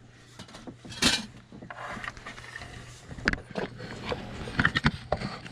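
Scattered clicks, knocks and scrapes of hands and tools working a serpentine belt onto the engine's pulleys and tensioner, with a short scraping rush about a second in. A low steady hum runs underneath.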